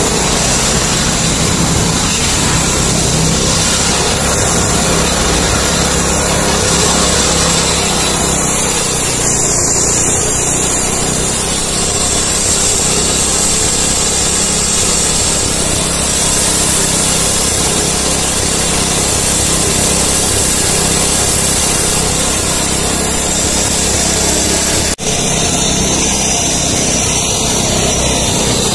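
Petrol-engined walk-behind concrete saw running steadily, its blade cutting wet concrete pavement. The sound drops out for an instant near the end.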